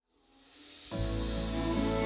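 Opening of a song's intro: a faint swell, then about a second in sustained chords over a steady deep bass note come in and hold.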